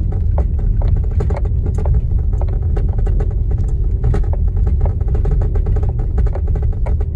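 Cabin noise of a Skoda Octavia II driving over a rutted, wet dirt track: a steady low rumble with many irregular knocks and clicks from the tyres and suspension on the rough surface.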